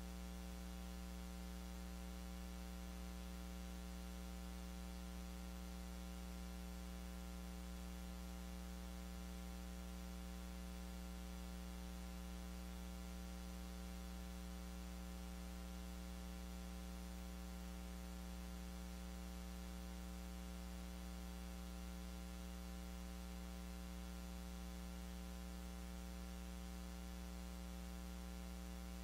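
Steady 60 Hz electrical mains hum with its overtones and a faint hiss, unchanging throughout; the sound of the service itself is not picked up.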